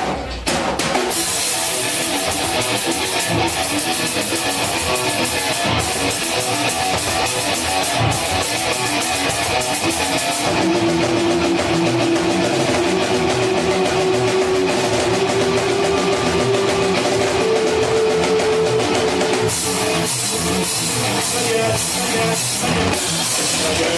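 Band playing live: drum kit and guitar at a steady loud level, with a long held note about midway that steps up in pitch before dropping out.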